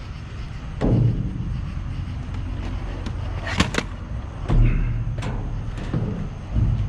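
Junk being handled and shifted about in a dumpster: scattered knocks and clunks, with a sharp double click about halfway, over a steady low rumble.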